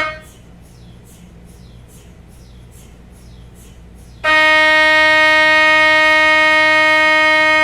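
MRI scanner running a scan: a quieter, fast repeating chirping from the gradient coils, about three a second, then about four seconds in a loud, steady buzzing tone starts suddenly and holds.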